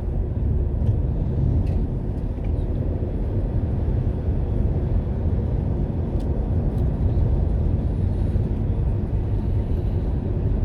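Car driving on a highway, heard from inside the cabin: a steady low rumble of engine and tyre noise, with a few faint ticks.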